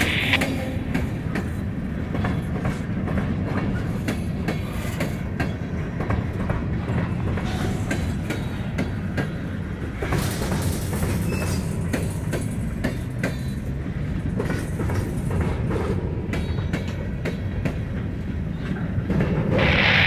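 Covered hopper freight cars rolling slowly past, with a steady rumble of the wheels and irregular clicking and clunking as the trucks cross rail joints. A brief high-pitched wheel squeal comes near the end.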